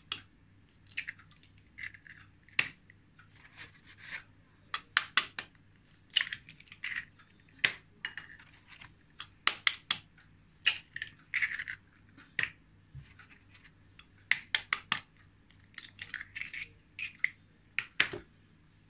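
Eggshells being cracked with a kitchen knife blade over a glass bowl: short clusters of sharp taps every second or two, with softer scratchy crackling of shell being pulled apart between them.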